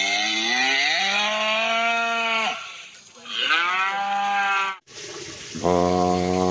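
Cattle mooing: two long moos, the second cut off sharply, then a shorter, steady moo near the end.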